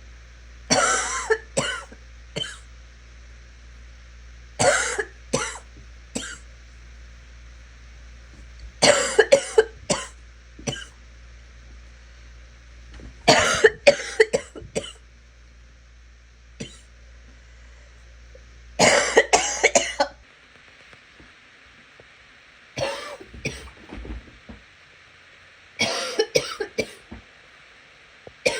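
A sick, congested person coughing in about seven fits, each a run of several quick coughs, coming every four to five seconds.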